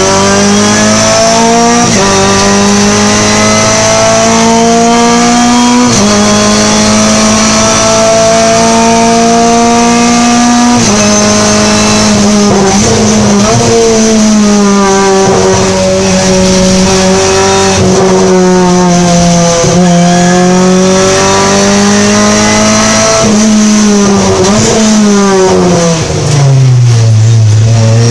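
Renault Clio Cup race car's engine heard from inside the cockpit, driven hard: revs climb and drop back with upshifts about two, six and eleven seconds in, then fall through a series of downshifts for corners in the middle and again near the end, where it pulls away once more.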